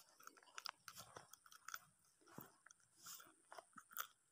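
Faint, irregular crackles and soft clicks from the phone being handled, its microphone rubbing against skin and clothing.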